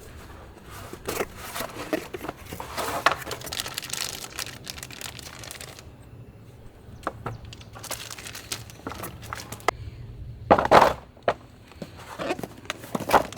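Packaging being handled and unpacked: irregular crinkling and rustling with small clicks, and a louder rustle about ten and a half seconds in.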